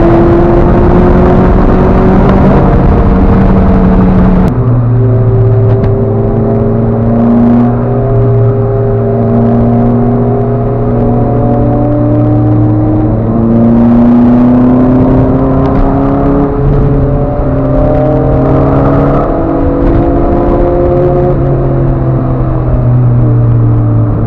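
Lotus Elise S2 engines accelerating hard, heard from inside the tailing car. The engine note climbs in long rises through the gears, with an abrupt change about four seconds in.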